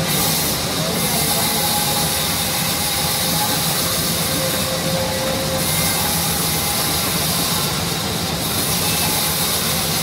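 Sawmill band saw running and cutting through a log: a steady, loud mechanical whir under a strong high hiss of the blade in the wood, which dips briefly a few times.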